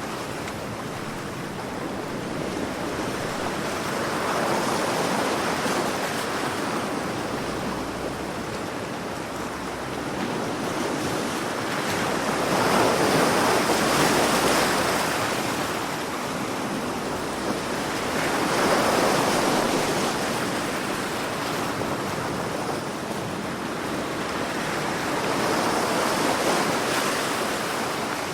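Sea waves breaking and washing in, a steady rush that swells and fades four times, about every six to seven seconds.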